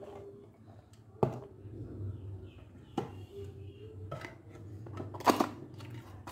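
Plastic drink cups handled and set down on a table: two sharp knocks, about a second in and at three seconds, then rustling clatter near the end, over a low steady hum.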